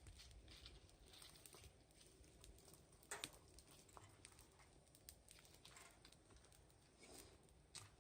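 Near silence with faint, scattered crackles and snaps from a wood fire, one sharper pop about three seconds in.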